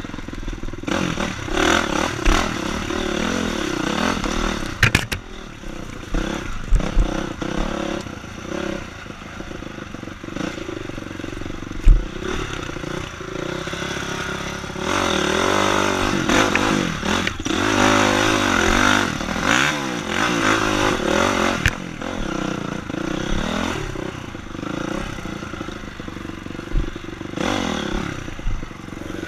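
Honda CRF four-stroke dirt bike engine running and revving up and down over rough woods trail, with the clatter and scrape of the bike over the ground. A single sharp knock comes about twelve seconds in, followed by a stretch of hard revving.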